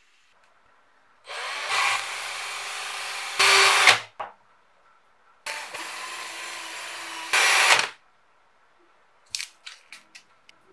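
Small electric polisher with an orange foam pad running in two short bursts of about two and a half seconds each, polishing a scratched action-camera lens held against the pad. Each run has a steady motor whine and grows louder for its last half second before cutting off.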